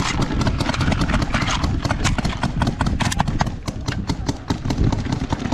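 Paintball markers firing in quick volleys, sharp pops coming several a second, over a low rumble of movement on the microphone.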